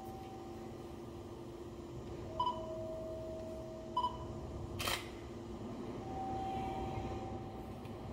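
Steady hum of a stationary 205 series electric commuter train. Held electronic tones and short beeps sound over it, two beeps about a second and a half apart, and a sharp click comes near the middle.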